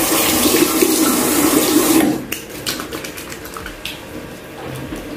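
Tap water runs steadily for about two seconds, then cuts off. Quieter splashes and wet rubbing follow as the face is washed.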